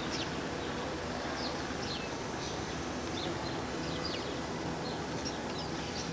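Small birds chirping repeatedly in short, quick downward chirps over a steady outdoor background hiss.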